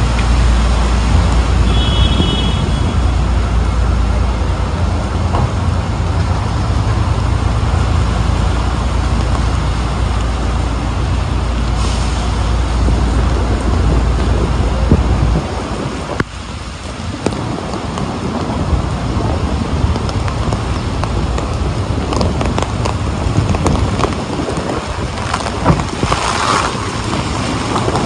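Heavy rain and city traffic on a wet street: a steady hiss of rain and tyres over a deep vehicle engine rumble that drops away suddenly about halfway through. A short high tone sounds about two seconds in.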